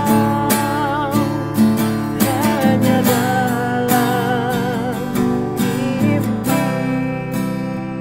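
Acoustic guitar strummed steadily while a man sings a slow, sad song with a wavering vibrato.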